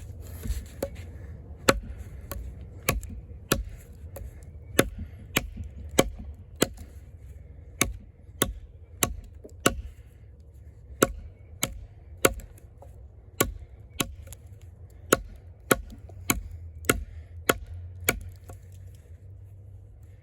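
Eafengrow EF-143 camp knife, a thick AUS-10 steel fixed blade, chopping into wood: a steady run of sharp strikes, a little under two a second, stopping near the end.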